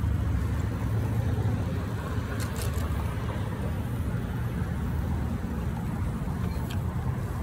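Steady low rumble of road traffic, with a couple of faint clicks about two and a half seconds in.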